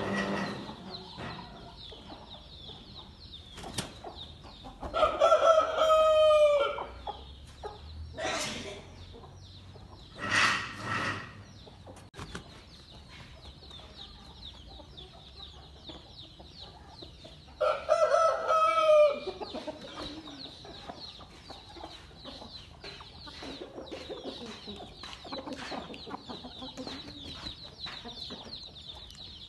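Game-breed rooster crowing: two loud crows, about 5 s and 18 s in, each a second or two long and dropping in pitch at the end.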